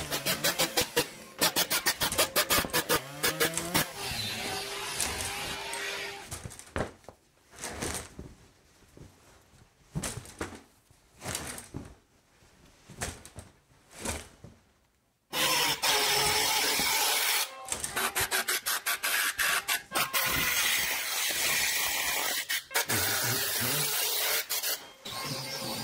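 Power tools on hardwood: a drill driving screws in quick bursts of clicking, then a pneumatic nail gun firing single shots about a second apart. From about fifteen seconds in, a loud steady power-tool noise starts abruptly.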